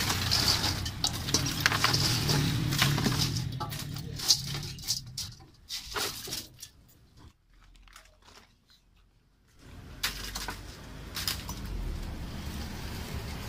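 Ice cubes clattering and clinking as they are scooped by hand from a stainless steel basin and dropped into a plastic cooler among glass bottles, with rapid knocks at first that thin out to a few. After a short quiet stretch, a steady low rumble comes in near the end.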